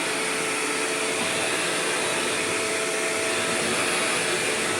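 Shark Rotator upright vacuum cleaner running steadily, a continuous rush of air with a steady whine.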